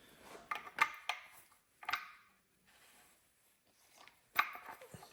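Scattered light clicks and knocks of a deep socket and tool against a spring-loaded timing-chain tensioner, which is being pushed in against its spring and turned to start its threads. The loudest knock comes near the end.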